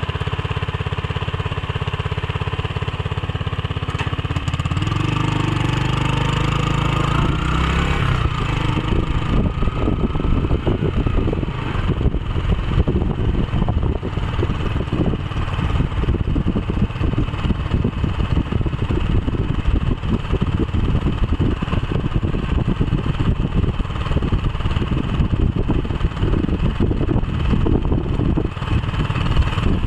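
Motorcycle engine running as the bike rolls along, picking up speed about five seconds in and then carrying on as an uneven low rumble.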